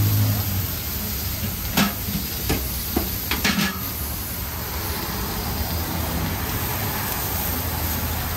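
Food frying with a steady sizzle, under several sharp clicks and knocks about two to three and a half seconds in. A vehicle's low engine hum fades out in the first half second, with street traffic behind.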